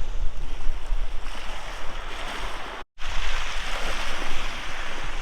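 Sea waves breaking and washing up the beach, with wind buffeting the microphone as a low rumble. The sound cuts out for an instant just under three seconds in.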